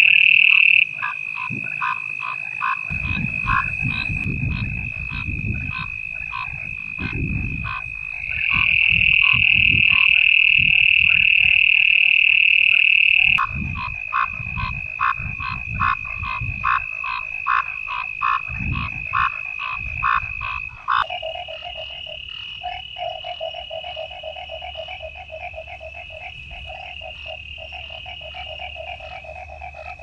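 Night chorus of crickets and frogs: a steady, high-pitched cricket trill with a train of short, rapidly repeated frog calls over it, and deep low pulses through the first two-thirds. The chorus changes abruptly about 8 and 13 seconds in. About 21 seconds in it switches again to lower-pitched repeated calls and grows quieter.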